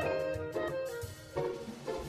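Instrumental background music: a melody of held notes over soft low thumps.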